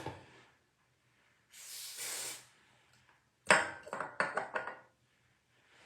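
A short spray-like hiss lasting under a second, then, about three and a half seconds in, a quick run of six or seven small hard clicks and clinks with a slight metallic ring, as styling tools are handled.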